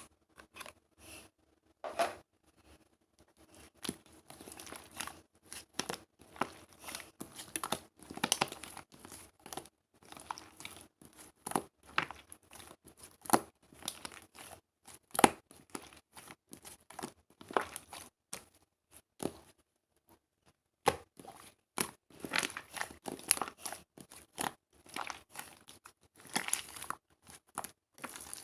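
Close-up crinkling and rustling of paper or plastic being handled, with short tearing sounds, in irregular bursts and a brief pause about twenty seconds in.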